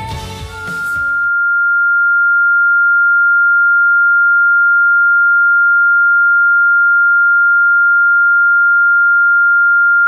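The last second of a pop song's music fades out as a single loud, steady, high-pitched electronic tone swells in and holds unchanging, with no other sound.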